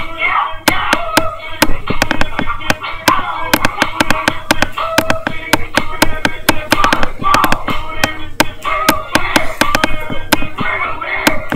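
Pop music with a singing voice, cut through by sharp, irregular pops and clicks several times a second from a laptop's built-in microphone being jostled because the laptop is not resting on a table.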